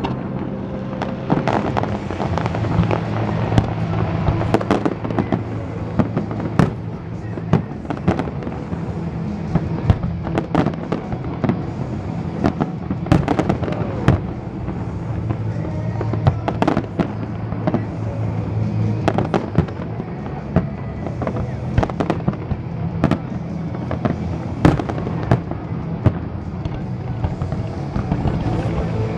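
A large fireworks display with shells bursting in sharp bangs, several a second at times and irregularly spaced, over the show's music soundtrack.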